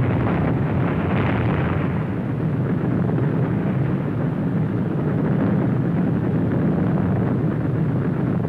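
Continuous low rumbling roar of an atomic bomb explosion on an old documentary film soundtrack, dull and without highs, holding at a steady loud level.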